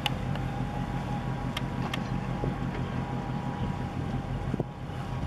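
Low, steady rumble of the container ship KMTC OSAKA under way in the harbour, mixed with wind buffeting the microphone. A faint steady hum runs underneath, and there are a couple of light clicks about one and a half to two seconds in.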